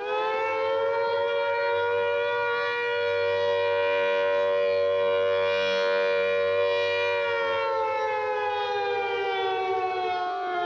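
Single air raid siren starting up, its pitch climbing quickly to a steady wail. About seven seconds in it begins to wind down, the pitch sliding slowly lower.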